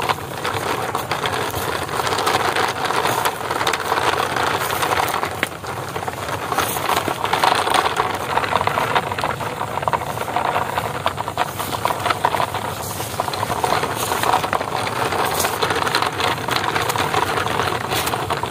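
Plastic toy dump truck pushed by hand over dry cracked earth and grass, its hard plastic wheels and body rattling and scraping without a break, with many small clicks.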